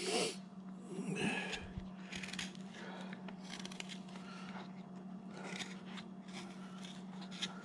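Hand carving gouge cutting into a wood block: a series of short, faint slicing and scraping strokes as chips are pared off, over a steady low hum.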